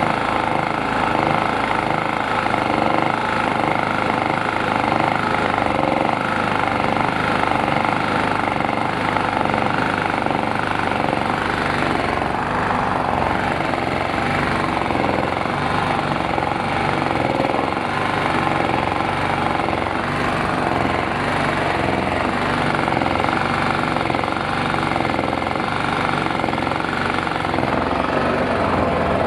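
Krisbow petrol generator's engine running steadily, back in running order after its dried-out carburettor was cleaned.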